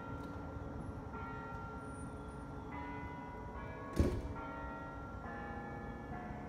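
Bells ringing, a new set of tones struck about every second and each left ringing on, over a low rumble. A single sharp knock about four seconds in is the loudest sound.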